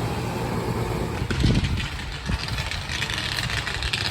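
2004 Goodman central air conditioner's outdoor condensing unit running in cooling mode: its Copeland scroll compressor hums steadily under the rush of the condenser fan. A couple of low thumps come about one and a half and two seconds in.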